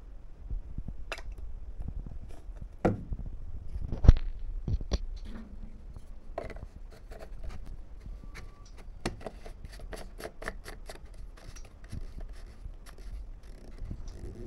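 Clicks, knocks and rubbing of small tools and objects being handled on a work surface, with a sharp knock about four seconds in and a quick run of thin clicks later on.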